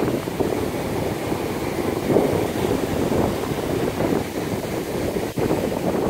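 Wind buffeting the microphone, a loud gusting rumble over the wash of breaking ocean surf.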